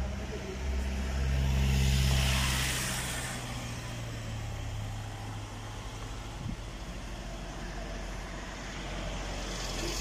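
A car driving past close by on a town street: engine hum and tyre noise rise to their loudest about two seconds in, then fade into steady traffic noise.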